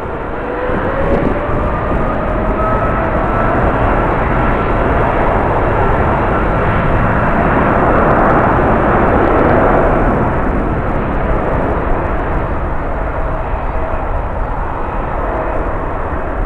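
A jet airliner passing by. Its engine noise swells to a peak about halfway through and then eases off, with a steady whine over the rush. Strong wind rumbles on the microphone.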